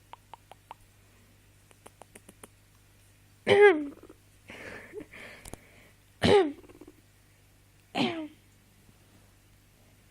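A person clearing the throat with a voiced 'ahum' three times, a few seconds apart, each one falling in pitch. There are soft breathy sounds between the first two, and faint quick clicks in the first couple of seconds.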